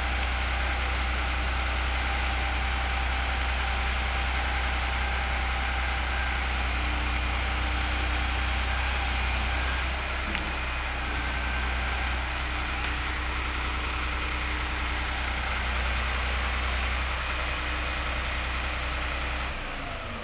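Boom truck's engine running steadily to drive the hydraulic crane while the boom swings a load, a deep low rumble with faint steady tones above it. The low rumble drops away just before the end.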